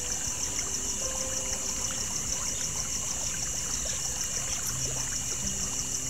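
Ambient creek soundscape: a stream trickling steadily, with a high, fast, even pulsing chirr throughout and soft held music notes underneath.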